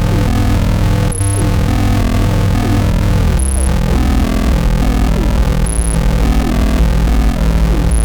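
Electronic noise music: a dense, loud low drone with many short falling glides layered over it, and a short high beep about every two and a quarter seconds, each beep with a brief dip in the sound beneath it.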